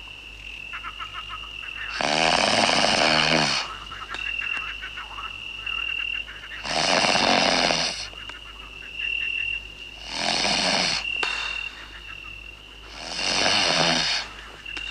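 A man snoring loudly and rhythmically in his sleep: four long rasping snores, one about every four seconds. A steady thin high tone carries on between them.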